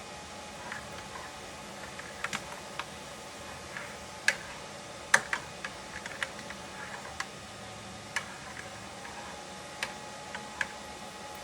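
Irregular small clicks and taps over a steady hiss, about a dozen or more scattered sharp ticks with the loudest two about four and five seconds in.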